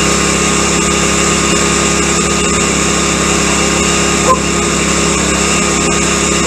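Small kayak motor running steadily at its lowest, slowest throttle setting, set by a twist-grip throttle. One short click about four seconds in.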